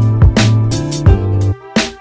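Background music with a steady drum beat over deep bass, dropping out briefly near the end.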